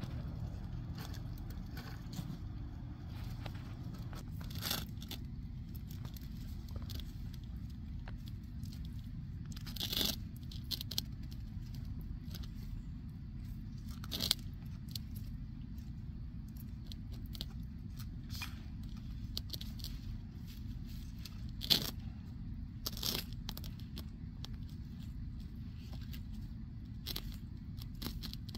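Sulcata tortoises biting and tearing at flower petals and lettuce leaves: scattered crisp crunches and snaps, a few sharper than the rest, about ten seconds in and again past twenty seconds. A steady low rumble runs underneath.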